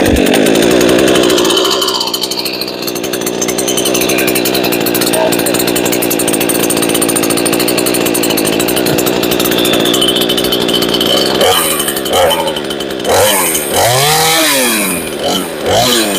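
Remington 46cc two-stroke chainsaw, muffler-modded and with its base gasket deleted, running at a steady fast idle. In the last few seconds it is revved up and back down several times in quick blips.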